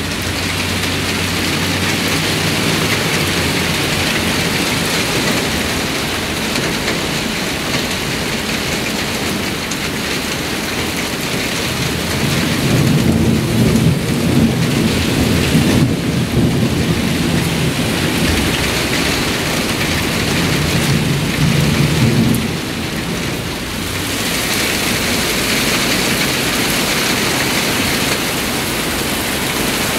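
Heavy thunderstorm downpour, rain hissing steadily on the ground and cars. About twelve seconds in, a low rumble of thunder rolls for about ten seconds and then fades.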